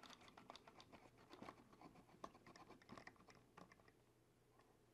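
Faint, irregular clicks and scratches of small plastic parts being handled as a 1/18-scale RC truck body has its small screws taken out. The clicking thins out near the end.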